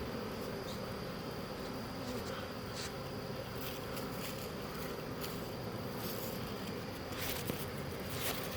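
Honey bee swarm buzzing: a steady hum of many bees in flight just after being shaken from the tree, on their way into the box.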